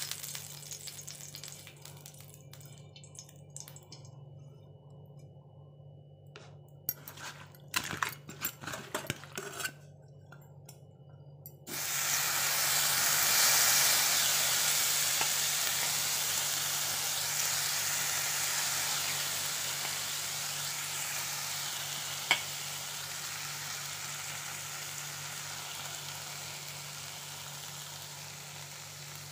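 Small whole fish going onto a hot oiled iron tawa: about twelve seconds in, a loud sizzle starts suddenly and then slowly fades as they fry. Before that, light scraping and taps of a brush spreading oil on the pan, and one sharp click partway through the frying.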